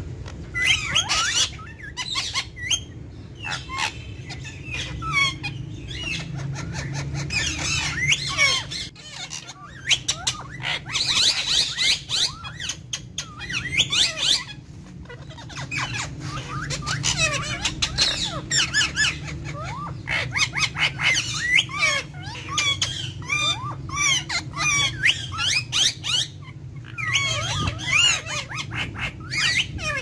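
Indian ringneck parakeets chattering and squawking: dense bouts of short, sharp, sliding high-pitched calls, broken by brief lulls.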